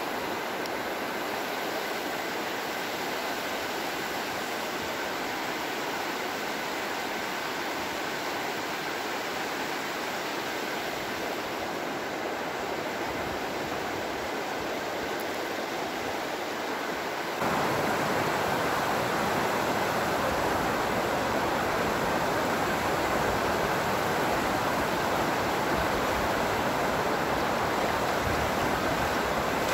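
Water pouring over a reservoir's overflow weir: a steady, even rush that gets louder about 17 seconds in.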